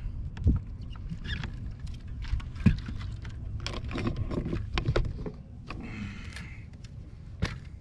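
Scattered sharp knocks and clicks of a freshly landed crappie and fishing gear being handled aboard a boat, the loudest about half a second in and again near three seconds, over a low steady rumble.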